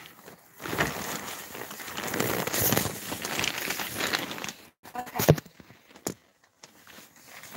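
Rustling and scraping from a phone being handled and moved about, its microphone rubbed close up, for about four seconds. A few sharp clicks follow near the end.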